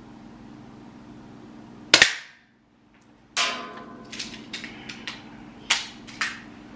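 An airsoft target pistol fires a single shot about two seconds in: a sharp crack with a short echo, the loudest sound. After it come a loud clack and a run of smaller mechanical clicks and clacks as the pistol is cocked and reloaded for the next shot.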